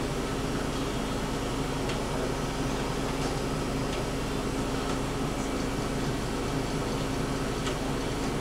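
Steady hum and hiss of a room's air conditioning, with a constant low tone and a few faint ticks.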